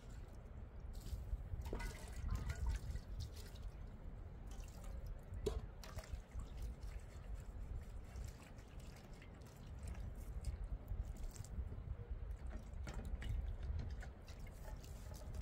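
Water dripping and splashing lightly, with scattered small clicks and knocks over a low rumble.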